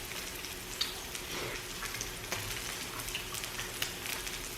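Pork belly (samgyeopsal) sizzling on a tabletop grill: a steady frying hiss with many small crackles and pops of spattering fat.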